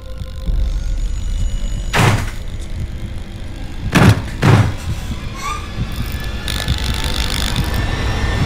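Horror-film sound design: a low rumbling drone with three heavy bangs, one about two seconds in and two in quick succession about four seconds in, followed by a rising hiss near the end.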